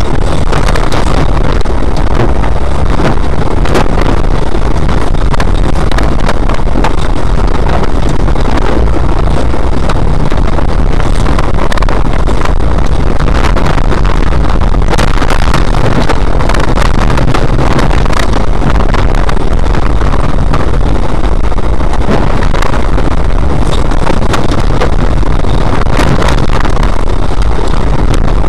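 Autocross car's engine running hard during a lap of a rough dirt track, heard loud and steady from inside the car. Frequent short knocks and rattles run through it as the car crosses the ruts.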